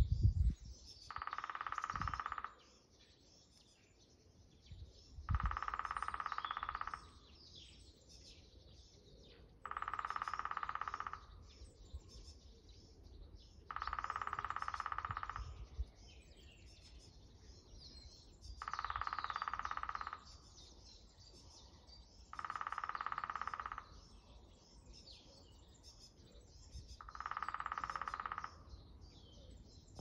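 Lesser spotted woodpecker drumming on wood: seven even rolls, each about a second and a half long, coming about every four seconds. Faint chirps of other small birds sound between the rolls.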